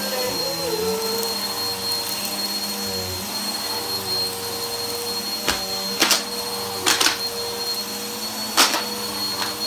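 Bissell upright vacuum cleaner running steadily on carpet, its motor whining at a high pitch. In the second half a few sharp crackles and clicks sound as crunchy debris is sucked up.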